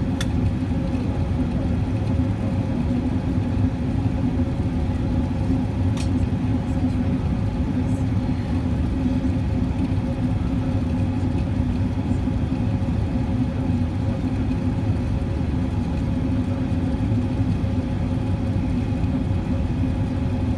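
Airbus A380 airliner cabin noise by the window: the steady drone of the jet engines and rushing airflow, with a constant low hum, during the descent on approach. Two faint ticks, one at the very start and one about six seconds in.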